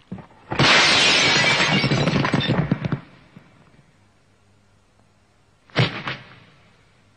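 A film fight sound effect of a glass pane smashing: a loud crash with shards crackling and falling for about two seconds. Near the end comes a single sharp hit.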